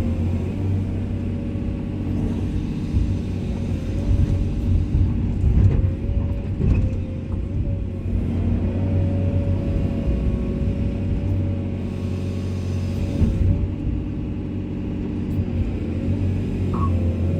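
Komatsu hydraulic excavator's diesel engine running steadily under work, with a steady whine over the low engine drone and a few brief knocks.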